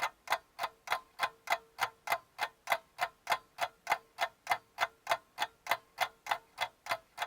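Clock ticking sound effect: an even run of sharp ticks, about three a second.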